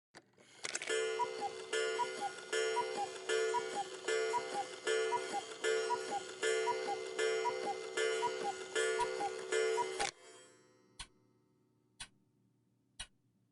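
Cuckoo clock striking: its falling two-note cuckoo call repeats about a dozen times, roughly every three quarters of a second, over a steady ringing tone. The call stops about ten seconds in, the ringing fades, and the ticking resumes at about one tick a second.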